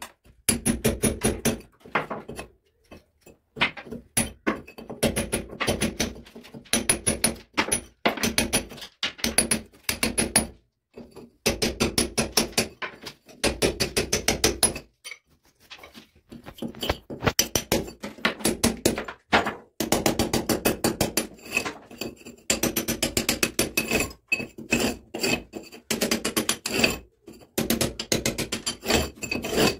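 Hand hammer striking a steel chisel against a brick wall in rapid runs of blows with short pauses between runs, chasing a groove for electrical pipe wiring.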